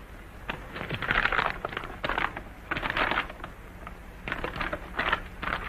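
A sheet of paper, a hand-drawn map, rustling and crackling as it is handled, in several short bursts.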